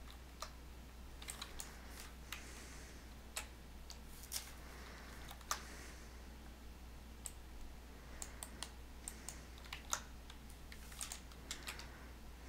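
Faint, irregular clicks of a computer keyboard and mouse, single and in short clusters, over a steady low hum.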